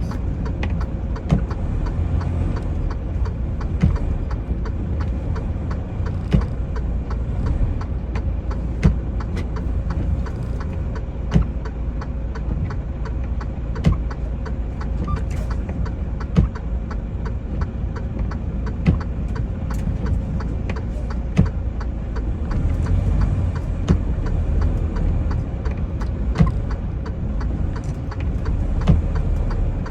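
Semi truck's diesel engine running with a steady low drone inside the cab. A sharp click repeats about every two and a half seconds.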